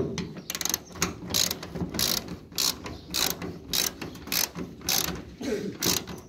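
Hand socket ratchet wrench tightening a nut onto a bolt. The ratchet clicks in short bursts about twice a second as the handle swings back and forth.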